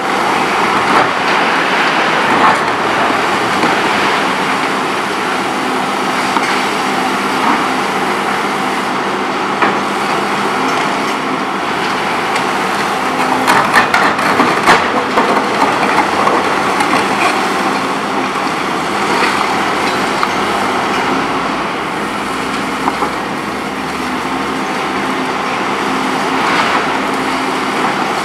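Volvo EC 700B HR high-reach demolition excavator running steadily under load while its hydraulic concrete shear crushes hard, steel-reinforced concrete. The engine and hydraulics hum steadily, and cracking and crunching from the concrete comes and goes, loudest about halfway through.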